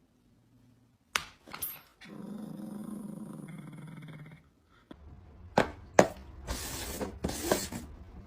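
A dog growling steadily for about two seconds, after a couple of sharp clicks. Then come scuffling, a few knocks and short hissy rustles.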